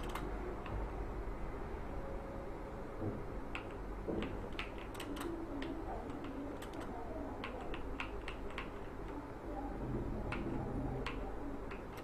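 Computer keyboard keys clicking in short irregular runs as text is typed, starting a few seconds in, over a steady low hum.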